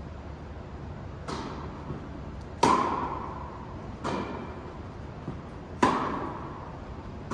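Tennis rally: a ball struck back and forth by two rackets, five hits about a second and a half apart, the near player's hits louder than the far player's. Each hit echoes in a large indoor tennis hall.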